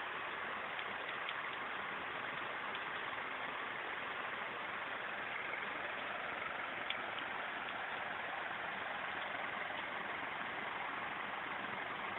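Heavy rain falling in a steady hiss, with car engines idling underneath in stalled traffic.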